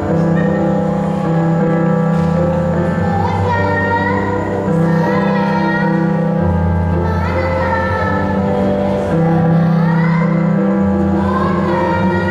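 Music with held bass notes that change every two seconds or so under sustained chords, and a singing voice that slides up and down through drawn-out notes.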